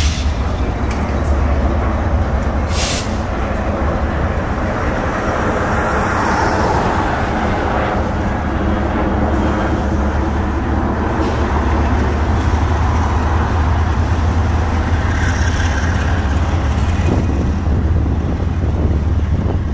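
Lead GE diesel locomotives of a BNSF double-stack intermodal train passing close by: a steady, loud rumble of engines with wheel-on-rail noise. A brief high hiss comes about three seconds in.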